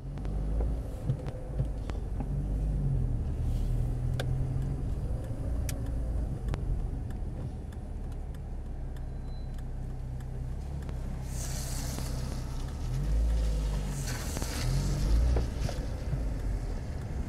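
Car engine running at low speed with steady road rumble, heard from inside the car, the engine note rising and falling a few times. Tyre hiss on the wet road swells twice, about eleven and fourteen seconds in.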